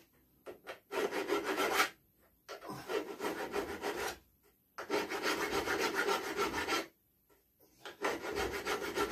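Hand file rasping on metal, taking a burr off a crash-damaged motorcycle footrest/brake-pedal part. The filing comes in four runs of quick back-and-forth strokes, separated by short pauses.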